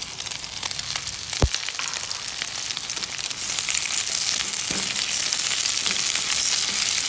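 Chicken pieces sizzling in oil in a skillet, with a single sharp knock about a second and a half in. A few seconds in, the sizzle grows louder as sliced white onion is tipped into the hot pan.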